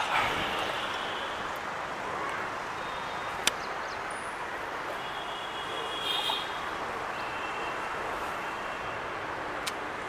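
Steady outdoor rumble and hiss of road traffic and a distant train running away down the line. There is a sharp click about three and a half seconds in and a brief cluster of faint high tones about six seconds in.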